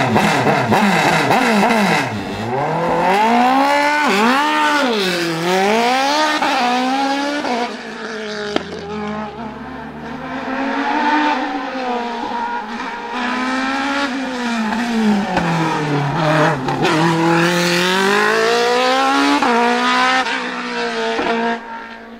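Gloria C8P Evo hillclimb prototype's Suzuki Hayabusa inline-four motorcycle engine pulling away from the start line and revving hard up through the gears. The pitch climbs and drops back again and again with each shift, and the engine fades near the end as the car goes up the hill.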